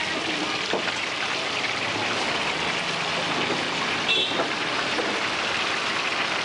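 Hot oil sizzling and crackling steadily as whole marinated fish deep-fry in a wide, shallow iron pan. A short high squeak cuts through about four seconds in.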